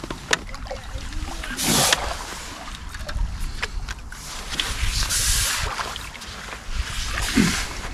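Angler playing a hooked fish on a feeder rod with a spinning reel: scattered light clicks of the reel and handling, and three rushing surges a few seconds apart, over a steady low wind rumble on the microphone.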